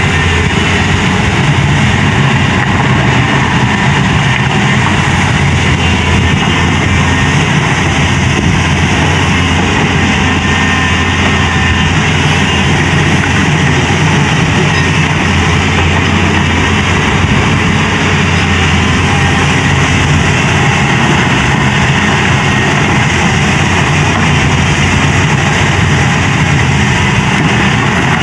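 Caterpillar tracked excavator's diesel engine running steadily as the machine works, an even low drone.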